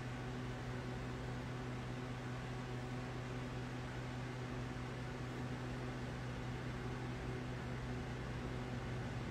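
Steady low hum with an even hiss: background room noise, unchanging throughout.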